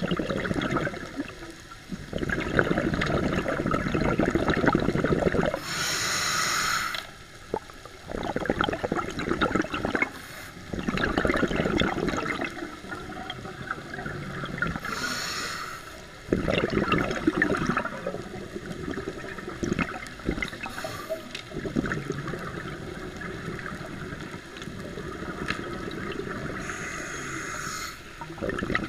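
Scuba regulator breathing underwater: long bubbling rushes of exhaled air lasting a few seconds each, alternating with short, high hissing inhalations through the regulator about three times.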